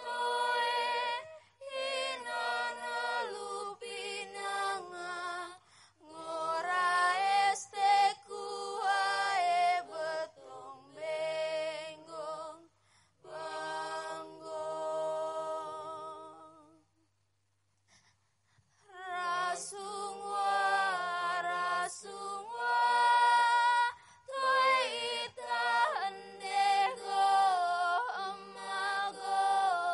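Unaccompanied singing with a slow, chant-like melody, sung in long phrases with a pause of about two seconds a little past the middle.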